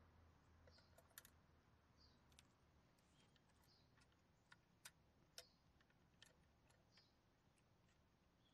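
Near silence with faint, scattered clicks: small plastic toy parts of a model garbage truck and bins being handled.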